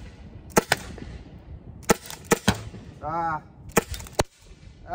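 Byrna SDXL CO2-powered launcher firing eco-friendly rounds: a string of about eight sharp pops, some in quick pairs. One of them bursts the red balloon. A brief vocal sound comes about three seconds in.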